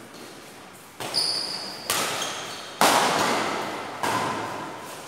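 Badminton rally: rackets hitting the shuttlecock five times, about once a second, each sharp hit echoing in the large hall. Short high squeaks of shoes on the court come in between.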